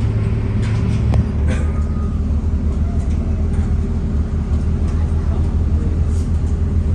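A motor vehicle's engine running with road noise in traffic, a steady low rumble whose pitch drops a little about a second in.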